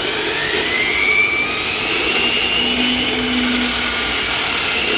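Electric aluminium-cutting saw switched on, its motor and blade running up to speed with a rising whine that levels off about two seconds in and then runs steadily. The motor sparks at its brushes, so the saw is being sold for scrap.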